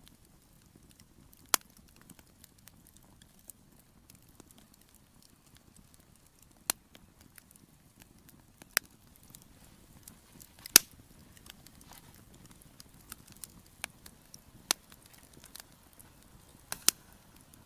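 Wood fire crackling: sparse, irregular sharp pops of burning wood, the loudest about eleven seconds in, over a faint low background.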